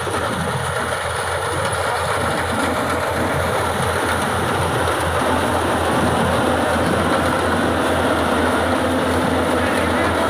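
Yanmar AW70GV combine harvester running steadily under load, its engine and machinery making a continuous loud drone that rises a little about halfway through.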